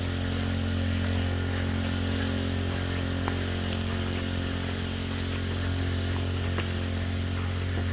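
Small gasoline engine of a gold suction dredge running steadily at constant speed, driving its pump.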